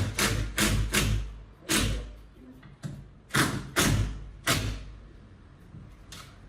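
Hammer blows on wood: a run of sharp knocks, several in quick succession at the start, a few more in the middle, then a pause near the end.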